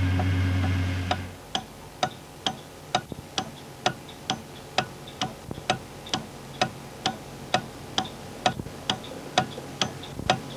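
A loud steady low drone cuts off about a second in, and a clock starts ticking, evenly at about two ticks a second.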